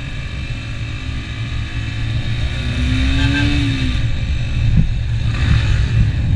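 Yamaha dirt bike's engine running under way, heard through heavy wind rumble on the rider's camera, with a brief rise and fall in engine pitch about three seconds in.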